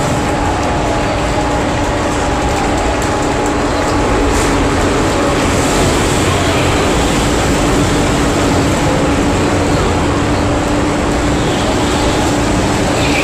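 Rental go-kart engines running in a kart hall, a steady mechanical drone with the background noise of a crowd.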